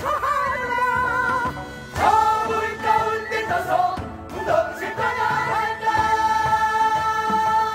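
Changgeuk chorus singing in pansori style to a fast jangdan, several voices together with musical accompaniment. The voices come in strongly about two seconds in and hold long notes with vibrato near the end.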